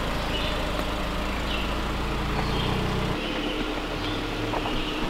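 Jeep Cherokee Trailhawk engine running steadily as the SUV crawls slowly over a dirt trail. Its low hum changes abruptly about three seconds in.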